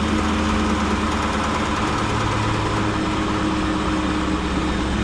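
SN95 Ford Mustang with a catless exhaust running at idle in first gear, a steady engine drone with no revving as the car rolls slowly on its own.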